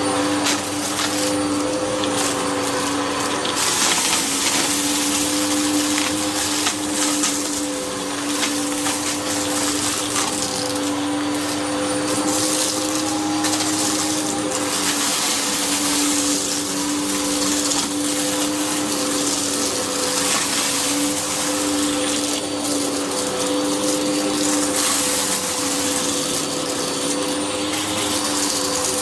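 Hoover upright vacuum cleaner running steadily over a rug, its motor humming at an unchanging pitch under a strong rush of suction air, with scattered crackles as crunchy debris is sucked up.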